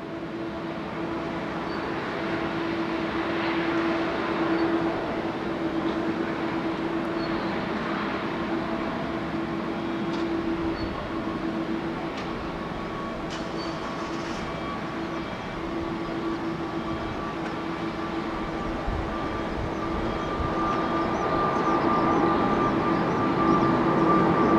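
Boeing 777-200ER's twin jet engines at takeoff thrust: a steady rumble with a constant low hum during the takeoff roll. A higher whine joins about halfway through, and the noise grows louder as the airliner lifts off and climbs overhead.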